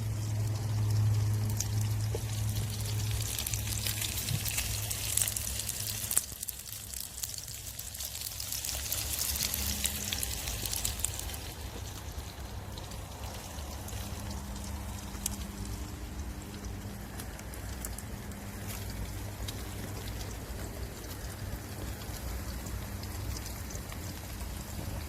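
A Swedish fire log (Swedish torch) burning, with a steady hiss and frequent sharp crackles. The fire is louder, with a low rumble, for about the first six seconds, then quieter.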